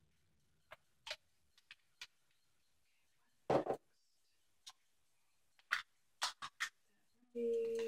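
Irregular clicks and knocks of plastic makeup cases and caps being picked up and handled on a table, with one louder clatter about three and a half seconds in. A brief steady hummed tone near the end.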